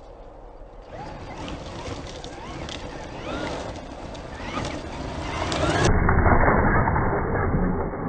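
Traxxas X-Maxx RC monster truck driving on sand and gravel, its brushless electric motor whining up and down in pitch with the throttle. It gets louder about six seconds in as it comes close, with the tyres churning gravel.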